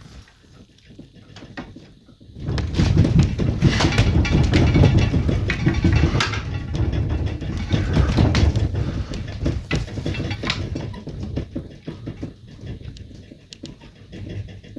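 A building shaking in a strong earthquake: a deep rumble with loose objects rattling and clattering. It starts suddenly about two seconds in, is strongest for several seconds, then dies away.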